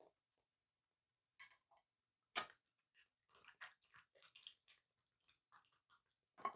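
Raccoon chewing grapes: scattered small clicks and smacks of eating, with one sharper, louder click about two and a half seconds in, after a short silent moment at the start.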